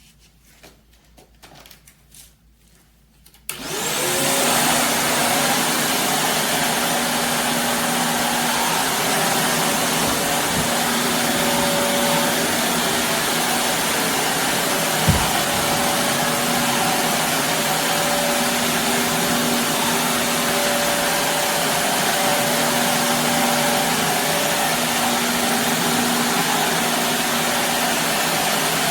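Shark Navigator Lift-Away upright vacuum switched on about three and a half seconds in, its motor spinning up with a rising whine, then running steadily as it goes over carpet. A single bump about halfway through.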